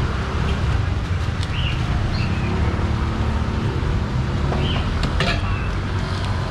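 Steady low rumble of street traffic, with a few short high chirps and a single sharp click about five seconds in.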